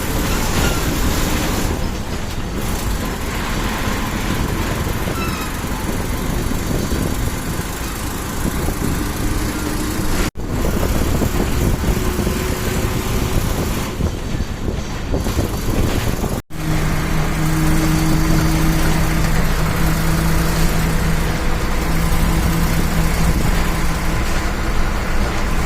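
Engine and road noise inside a moving TSRTC bus: a steady rumble with tyre and wind hiss, and a steady low engine hum standing out in the later part. The sound cuts out for an instant twice.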